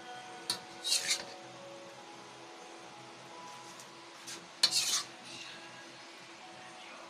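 A utensil clinking and scraping against a dish or pan in three short bursts, the last and loudest about two thirds of the way through, over a faint steady background.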